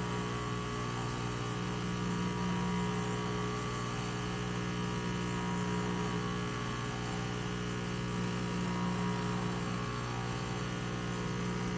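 Breville Oracle BES990 espresso machine's water pump running continuously with a steady hum. It is not drawing water from the tank, which the technician takes for a failed pump.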